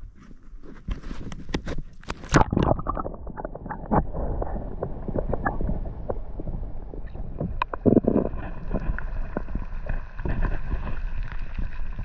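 Knocks and splashes as a camera is pushed into lake water from a kayak. Then a muffled underwater rumble and gurgling of water moving around the submerged camera housing.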